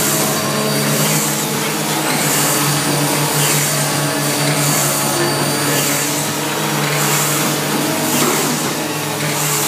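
Automatic cardboard cutting machine running: a steady motor and blower hum under a broad hiss, with a high hiss that swells about once a second.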